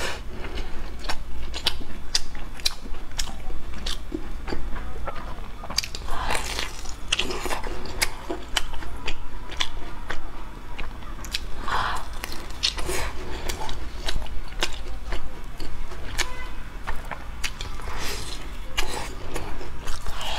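Close-miked biting and chewing of a crumb-coated fried bread roll: many short, sharp crackles in irregular clusters as the crust breaks between the teeth.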